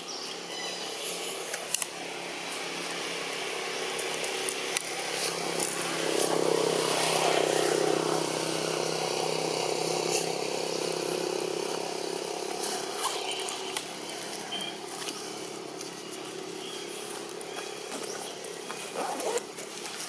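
Engine of a passing motor vehicle, a steady hum that grows louder to a peak about seven seconds in and then slowly fades, with a few sharp clicks along the way.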